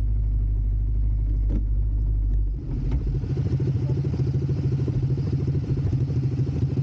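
ATV engine running. A deep steady drone gives way abruptly, about two and a half seconds in, to a brighter, evenly pulsing engine note.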